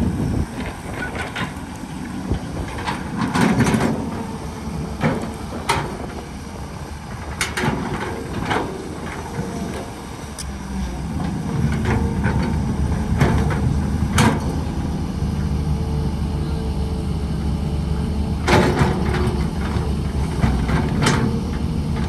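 Heavy construction machinery at work: a diesel engine runs with a steady low rumble while sharp metallic clanks and knocks come at irregular moments, a cluster of them a few seconds before the end. The rumble grows louder about halfway through.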